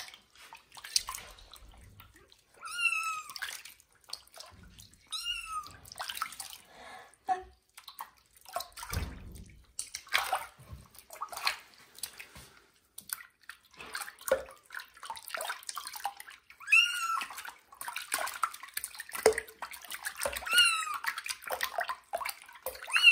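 Kitten meowing in distress as it is bathed: about five short, high-pitched meows with slightly falling pitch, spread through, over water splashing and sloshing in the sink as hands wash it.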